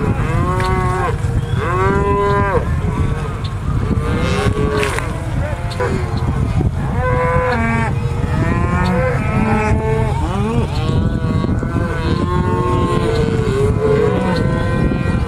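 Herd of black Angus cattle mooing, many overlapping calls one after another, over a steady low rumble.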